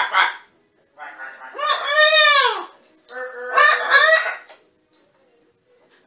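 Green-winged macaw vocalizing loudly in harsh, pitched calls: a short call at the start, a long call that rises then falls about two seconds in, and another call around four seconds in.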